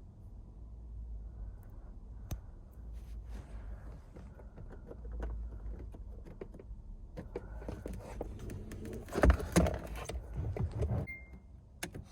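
Rattling and clicking of keys and small parts being handled, with a louder clatter about nine seconds in.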